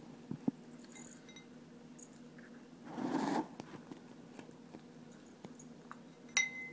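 Puppy eating dry kibble from a bowl: small scattered clicks and crunches of chewing and food shifting against the bowl, with a louder scraping rustle about three seconds in. Near the end a sharp clink rings briefly as something strikes the bowl.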